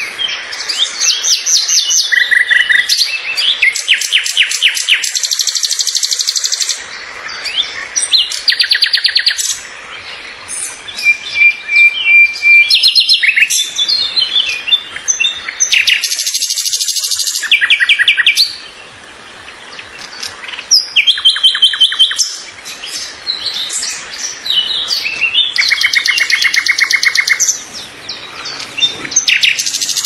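Songbirds singing: phrase after phrase of fast trills and chirps, with a short held whistle a little before the middle.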